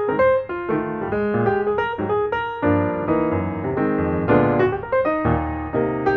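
Background piano music: a steady melody over chords.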